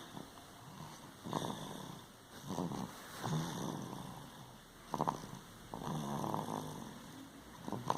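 A sleeping baby snoring, with a noisy snoring breath every second or two.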